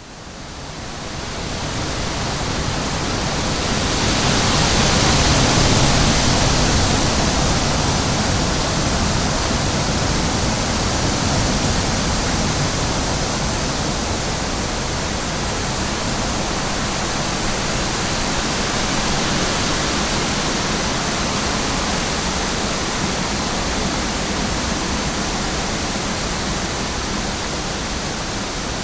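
Steady, even rushing noise of a nature ambience, with no distinct events. It fades in over the first couple of seconds and swells a little about five seconds in.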